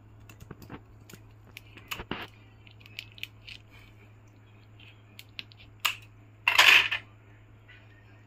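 Kitchen scissors snipping and cracking through a raw spiny lobster's shell: a scatter of small clicks and crunches, with one louder half-second crunch about six and a half seconds in.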